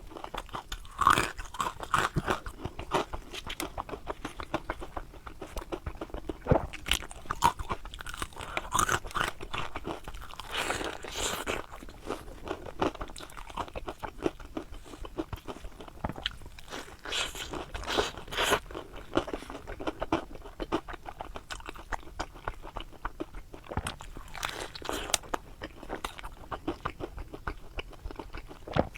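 Close-miked crunching and chewing of deep-fried, batter-coated eggplant boxes (zha qie he), with crisp bites and irregular crackling chews throughout.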